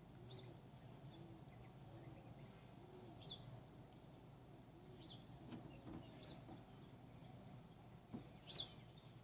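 Faint, short, falling bird chirps repeating every second or two over a low background hum, with a couple of louder brief chirps near the end.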